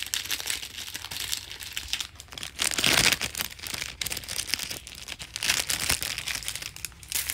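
Clear plastic wrapper on a card packet crinkling and tearing as it is worked open by hand, in a run of irregular crackles with a louder burst about three seconds in.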